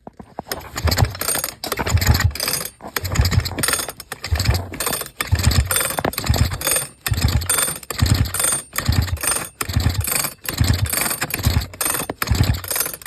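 Sachs Dolmar 112 chainsaw being cranked over by its recoil starter cord, about a dozen pulls at roughly one a second, with the spark plug out for a compression test. The cylinder has very little compression, only about 14 to 18.5 psi on the gauge, which the owner judges not good enough to run.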